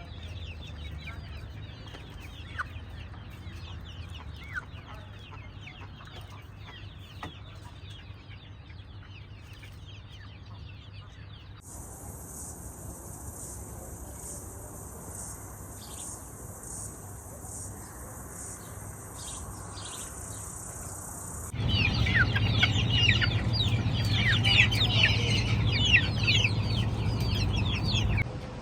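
Chickens chirping and clucking: many short, high, falling chirps overlapping. A steady high pulsing hiss joins in for a stretch in the middle, and from about three-quarters in the chirping is louder and denser.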